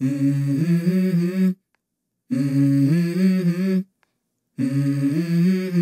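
Wordless vocal humming in three short phrases of held, stepping notes, each about a second and a half long, with brief silences between them: the intro of a song.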